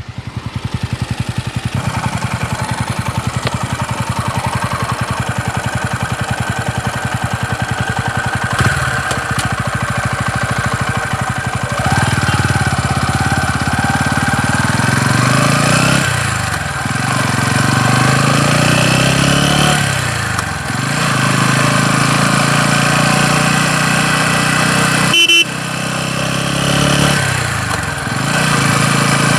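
TVS Ronin 225cc single-cylinder motorcycle engine running, first at a steady idle, then revved up and let fall back several times. The owner hears a knocking noise in it that a service centre has called common to all Ronins.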